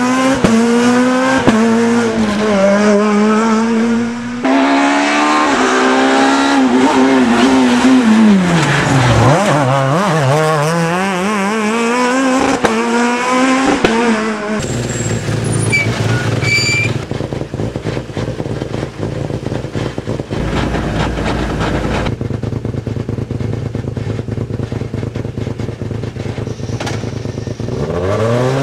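Rally car engines, a Peugeot 207 rally car among them, revved hard, the pitch climbing and dropping over and over through gear changes. About halfway through, this gives way to a steadier, lower rumble, and near the end an engine revs up again.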